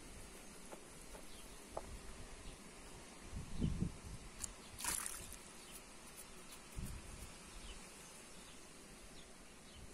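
Faint outdoor background with a few soft splashes and wet rustles as bunches of red currants are lifted out of a basin of water, the clearest about five seconds in.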